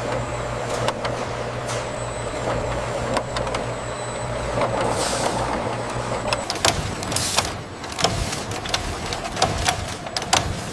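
Automated chocolate production-line machinery running, with a steady low hum and irregular sharp clicks and clacks. The hum stops about two-thirds of the way through while the clattering goes on.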